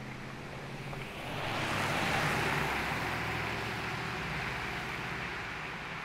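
Ram 2500 Power Wagon pickup with its 6.4-litre HEMI V8 driving past on a gravel road and away. The engine and the tyres on the gravel swell to a peak about two seconds in, then fade slowly as the truck recedes.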